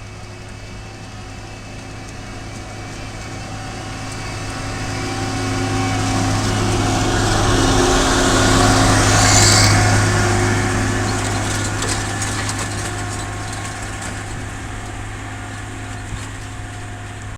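Engine of large harvest machinery passing by, a steady drone that swells to its loudest about halfway through and then fades away.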